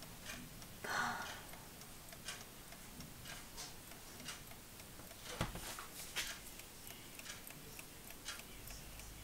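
Old Soviet mechanical alarm clock, taken apart, its clockwork ticking faintly and steadily at about three ticks a second, with a few soft knocks about a second in and between five and six seconds in.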